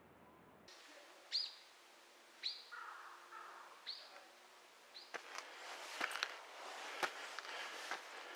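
A small bird giving short, high single call notes that fall in pitch, four of them about a second apart. From about five seconds in, irregular crisp crunching clicks of footsteps take over.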